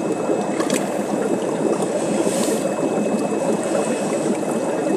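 Steady rush and bubbling of water from a Sunsun HBL hang-on canister filter running and pumping water normally.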